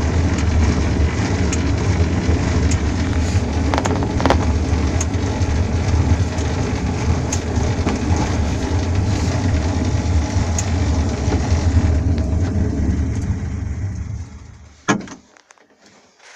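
Quest velomobile running with a steady low rumble, and a sharp click about once a second, once per pedal stroke, from the stock SPD pedal whose bearing is worn out. Near the end the rumble fades away and there is one sharp knock.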